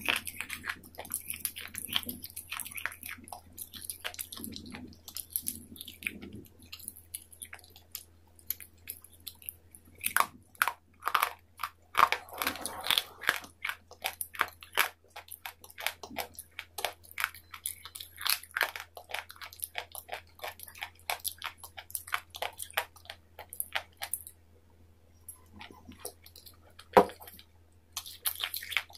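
Close-miked chewing and biting of crisp food: a dense run of crunches and crackles, with a few short pauses and one loud sharp crunch near the end.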